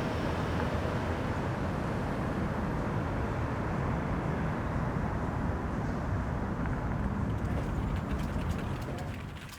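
Steady low rumble of vehicle noise, fading away near the end.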